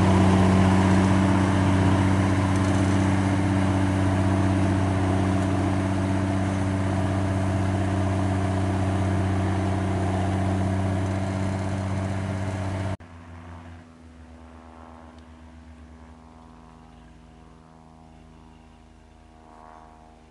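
Schlüter 1250 Special tractor's diesel engine running steadily under load while pulling a four-furrow plough through the soil, loud and close. About 13 seconds in the sound drops abruptly to the same tractor working far off, much fainter.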